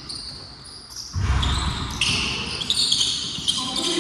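Basketball game play on an indoor court: ball bouncing and players' shoes on the floor, getting suddenly louder about a second in.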